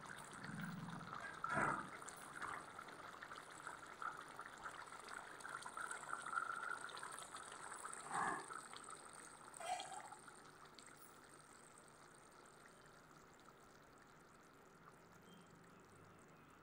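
Faint bubbling and hiss of egg and cauliflower curry simmering in a kadhai, with a few short knocks in the first ten seconds; after that it fades almost to silence.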